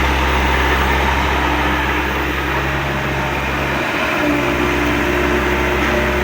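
A small machine running steadily: a low hum under an even rushing, airy noise, with a faint extra tone entering about four seconds in.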